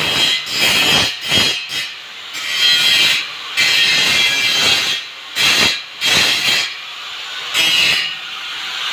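Angle grinder grinding steel in a series of short passes. A loud, hissing grind rises each time the disc bites the metal and drops back between passes while the disc keeps spinning.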